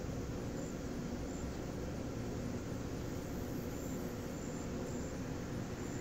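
Steady outdoor background noise: a low, uneven rumble with an even hiss over it.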